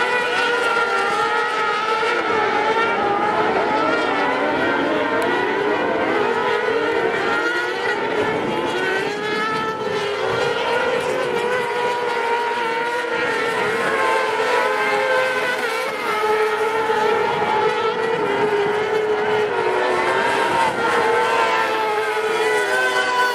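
Several motorcycle-engined kartcross buggies racing together on a dirt track. Their engines rev high, overlapping, with pitches rising and falling as they accelerate and ease off through the corners.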